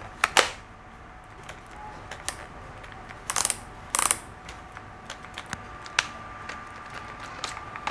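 Hilti SF 6H-A22 cordless hammer drill handled with a flat battery, so the motor does not run. Its front chuck collar is turned by hand and clicks through its detents in scattered ratcheting clicks. The loudest clicks come about a third of a second in and again around three and four seconds in.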